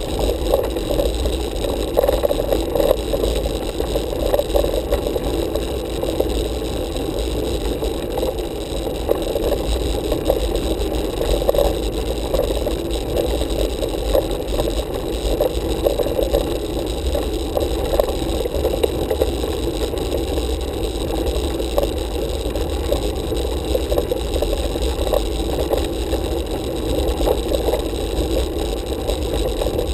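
Steady rumble and rattle of a road bike rolling over rough asphalt, the road vibration picked up through a handlebar-mounted camera.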